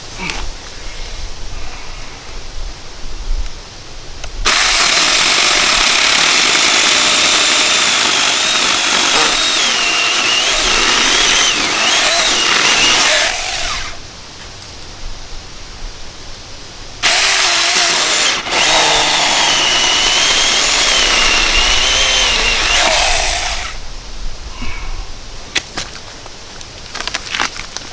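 Saker electric mini chainsaw cutting through a dead log in two long runs of several seconds each, with a pause between them. Its motor and chain give a high whine whose pitch wavers as the blade loads up in the wood.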